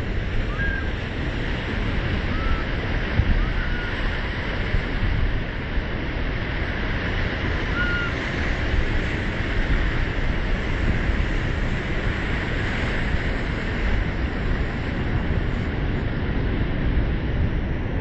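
Ocean surf washing over a rocky shore, with steady wind buffeting the microphone. A few short, high chirps come through in the first half.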